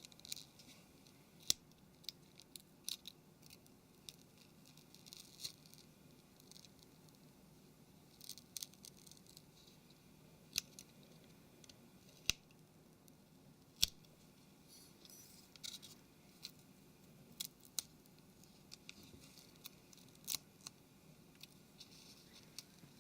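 Faint, scattered small clicks and light scrapes from a smartphone's parts and small tools being handled while it is taken apart, with a few sharper ticks and short clusters of clicks.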